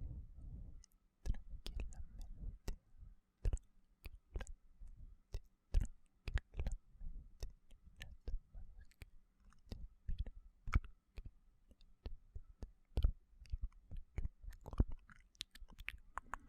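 Close-miked ASMR mouth sounds: sharp, wet mouth clicks and smacks at an irregular pace, a couple a second, with a soft breath fading out in the first second.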